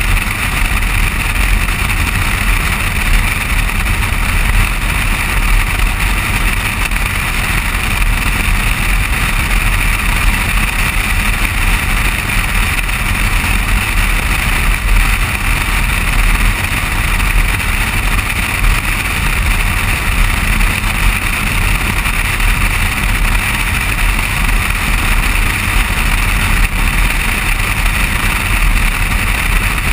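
Steady wind rush and low rumble of tyre and road noise from a car driving at cruising speed, picked up by a camera mounted on the outside of the car beside the side mirror.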